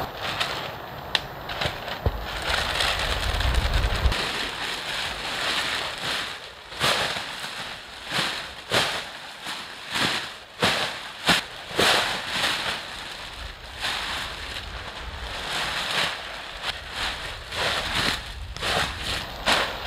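Thin clear plastic sheeting from a mattress cover crinkling and rustling as it is unfolded and shaken out. Many sharp, irregular crackles and snaps, loudest and most frequent around the middle.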